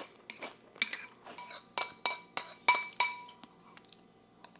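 Spoon clinking and scraping against a white ceramic bowl while eating a smoothie bowl: a rapid run of ringing taps, several a second, that stops about three seconds in.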